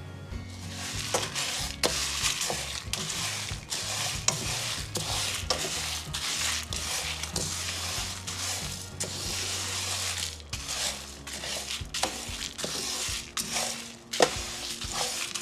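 Wooden spatula stirring coriander seeds and dried red chilies as they roast in a pan: a dense rustling rattle of seeds with frequent short scrapes against the pan, the spices faintly crackling and sizzling in the heat.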